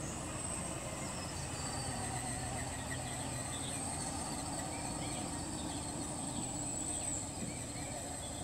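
Steady high-pitched buzz of insects in the trees, with faint short chirps scattered through it and a low steady hum underneath.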